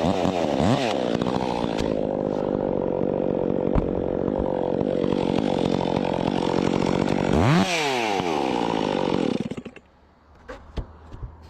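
Chainsaw engine running steadily, revved up and back down once about seven and a half seconds in, then shut off about nine and a half seconds in. A few faint knocks follow.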